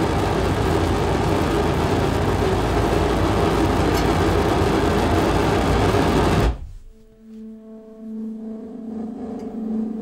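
Loud, dense wash of electronic noise played as part of an electronic music piece, cutting off abruptly about six and a half seconds in. After the cut, a quieter steady drone of a low hum with a couple of higher sustained tones, like a gong or singing bowl.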